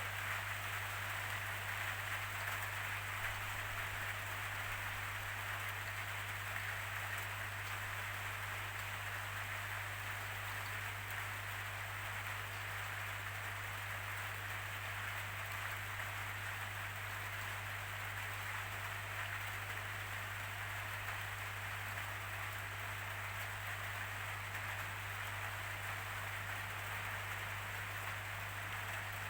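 Steady rainfall, an even hiss of rain that does not change in strength, with a low steady hum underneath.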